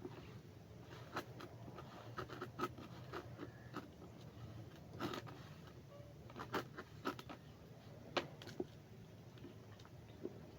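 Hands mixing and kneading grated cassava and gari into a bait dough: irregular small scrapes, rustles and taps.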